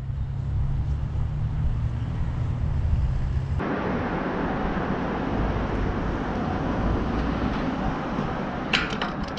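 Roadside ambience on a walking camera's microphone: a steady low rumble, then after an abrupt cut about three and a half seconds in a louder, even hiss of traffic noise. A short cluster of clicks comes near the end.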